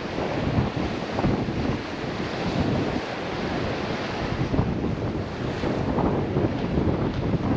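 Strong wind buffeting the microphone in uneven gusts over the steady wash of sea on the shore.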